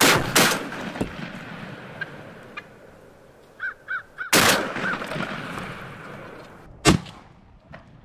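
Shotgun blasts at turkeys: two shots almost together at the start, another a little after four seconds with a long echoing tail, and a short sharp one near the end. A few brief bird calls come just before the third shot.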